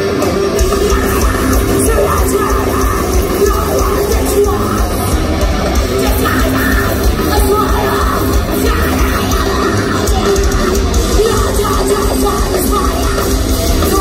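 Live metalcore band playing loud and without a break: electric guitar, bass guitar and drums, with a female vocalist yelling and singing into a microphone.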